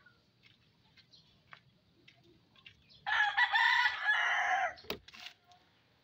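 A rooster crowing once, about three seconds in, a call lasting just under two seconds.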